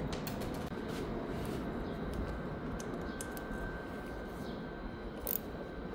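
A few scattered light clicks at irregular intervals over low background noise, made by a hand tool tightening the four clamp bolts on a motorcycle handlebar.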